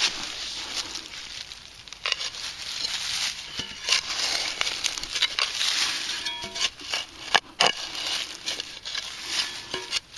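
Digging into stony soil: repeated crunching and scraping of dirt and stones, with a few sharp clicks.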